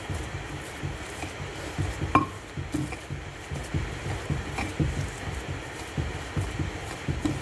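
Pestle pounding and mashing boiled potatoes in a stone mortar: a steady run of dull, soft thuds, about two or three a second, with one sharper knock of the pestle on the stone about two seconds in.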